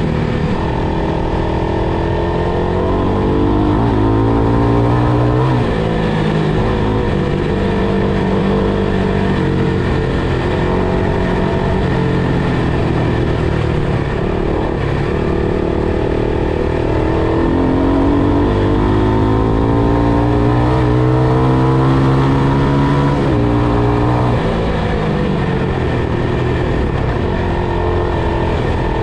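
FPV quadcopter's motors and propellers whirring, the pitch rising and falling with the throttle: it climbs a few seconds in and drops back, then climbs again for several seconds past the middle and drops near the end.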